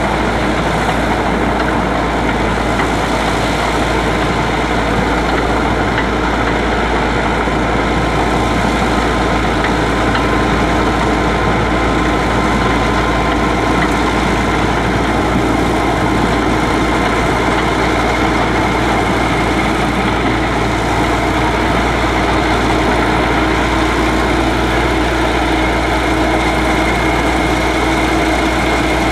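Diesel engine of a small crawler paddy tractor running steadily as it tills a flooded rice field.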